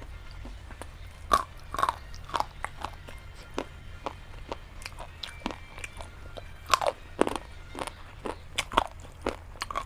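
Close-up crunching and chewing of something hard and brittle in the mouth: an irregular run of crisp crunches with several louder bites.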